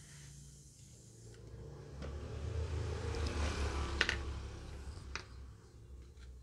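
Water spray from a washer jet cleaning a motorcycle gear shift lever and linkage, swelling about two seconds in with a low hum beneath it. Two sharp metal clinks come near the end as the parts move.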